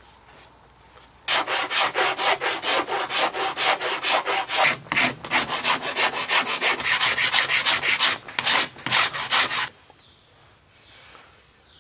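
A hand file rasping wood on a bow under construction, in quick even strokes of about four a second. It starts about a second in and stops shortly before the end.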